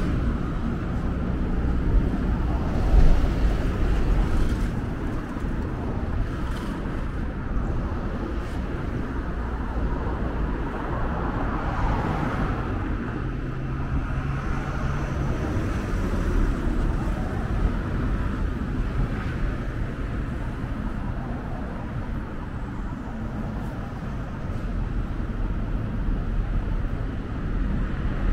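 Steady road traffic on a wide city street: cars driving past, with a short louder moment about three seconds in.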